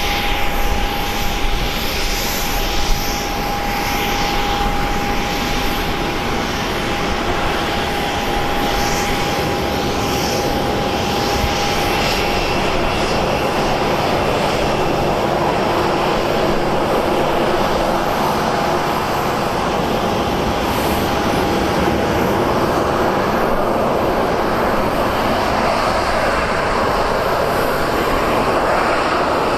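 Airplane engines running: a steady rush of noise with a steady whine that fades out a little after twenty seconds in.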